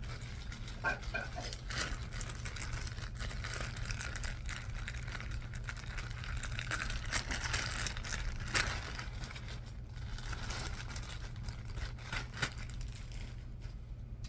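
Packaging crinkling and rustling as it is handled and opened to take out a t-shirt, with irregular crackles that are loudest about two thirds of the way in, over a steady low hum.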